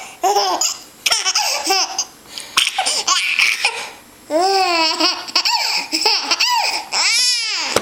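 Baby laughing in a run of high-pitched peals of about a second each with short breaks between, the last a long high peal near the end.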